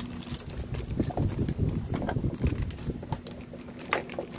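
Muffled rustling and handling noise from plastic toy pieces and their plastic packaging being handled close to the microphone, with a sharp click at the start and another near the end.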